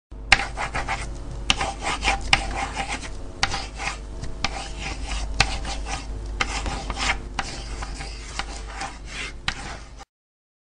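Old film-reel sound effect: a scratchy, crackling hiss with irregular sharp pops over a steady low hum, cutting off suddenly about ten seconds in.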